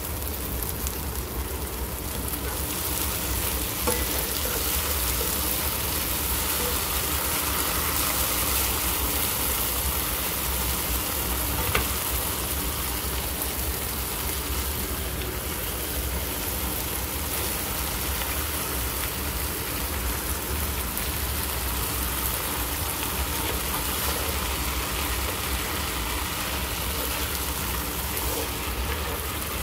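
Diced eggplant, onion and peppers frying in an electric skillet: a steady sizzle, with a couple of light clicks about four and twelve seconds in.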